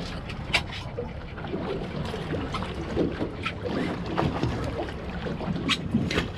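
Steady low rumble of wind and water around a fishing boat at sea, with a few short sharp clicks scattered through it.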